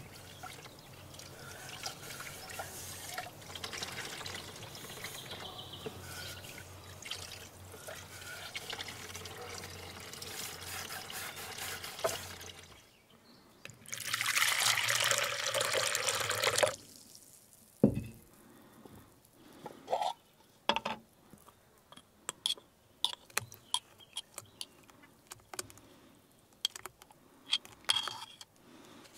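Water poured from a steel saucepan into a mixing bowl, a steady splashing pour of about three seconds. After it come scattered small clicks and scrapes of a metal spoon against a glass jar and the bowl. Before the pour there is a low, steady outdoor background.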